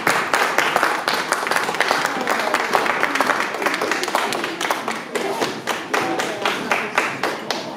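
Ringside audience clapping in quick, irregular claps, with voices talking underneath.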